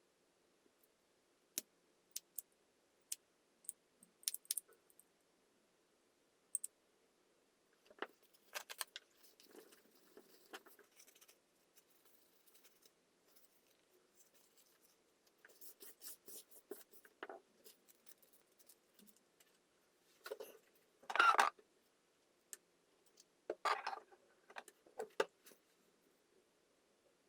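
Small metal pieces being handled: scattered sharp clicks and clinks with short clattery scrapes. The loudest clatter comes about two-thirds of the way through, with another cluster soon after.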